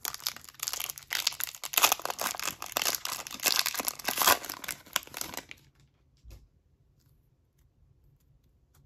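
Foil wrapper of an Upper Deck hockey card pack being torn open and crinkled by hand: a dense crackle for about five and a half seconds that then stops, leaving only a few faint ticks as the cards are handled.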